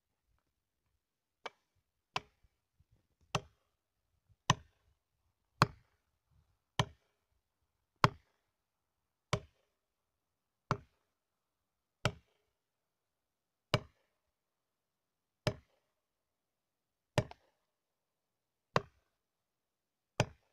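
About fifteen heavy, evenly paced blows on wood, one every second or so at first and slowing to about one every one and a half seconds; the first blow is noticeably quieter.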